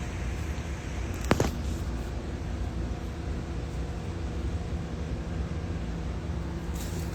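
Steady low mechanical hum, like a running engine or machine, with one sharp click about a second in.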